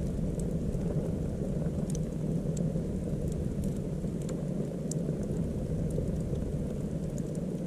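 Wood fire burning: a steady low rush of flames from logs leaning upright in a self-feeding fire lay, with scattered sharp crackles and pops.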